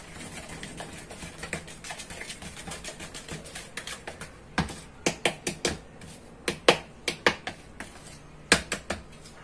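A flat wooden stick stirring a thick soap paste in a clear plastic measuring jug, clicking and scraping against the jug's sides. Quick, soft scraping clicks at first, then a string of sharper, separate clicks from about halfway through.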